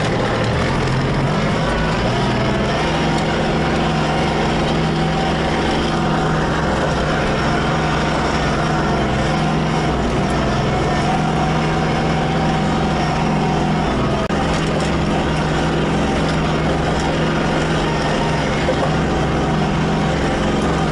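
Tractor engine running while the tractor is driven. The engine note steps up about three seconds in and then holds steady.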